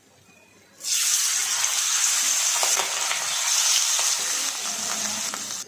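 Pieces of katla fish frying in hot oil in a kadhai: a loud, steady sizzle that starts suddenly about a second in.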